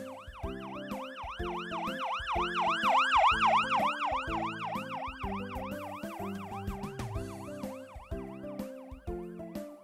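Emergency vehicle siren on a fast yelp, its pitch rising and falling several times a second. It grows louder to a peak about three seconds in, then fades, over children's background music.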